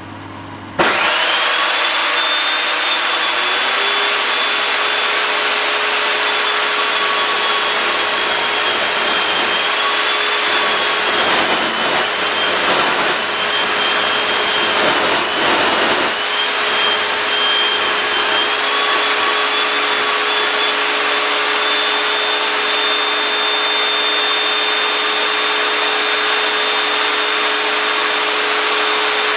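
Evolution Rage 5S table saw switched on about a second in, its motor running with a steady high whine. The pitch sags for several seconds in the middle as the blade cuts into a block of mahogany, then recovers.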